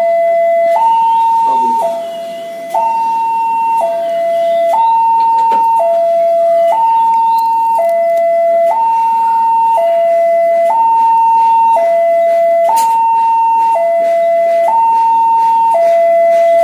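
Railway level-crossing alarm sounding a loud two-tone electronic warning, alternating between a lower and a higher note about once a second. This is the signal that a train is approaching and the barriers are down.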